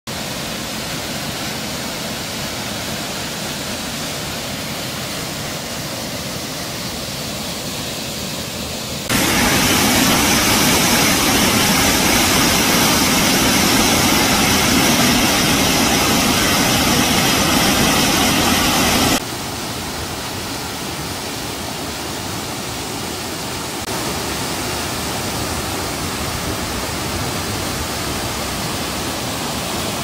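Mountain waterfall pouring over rock into a pool: a steady rushing of water, much louder for about ten seconds in the middle and a little louder again near the end.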